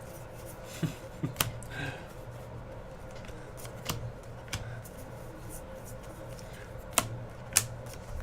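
Baseball trading cards being handled and flipped through, giving irregular sharp clicks and light rustles, two louder snaps near the end, over a steady low hum.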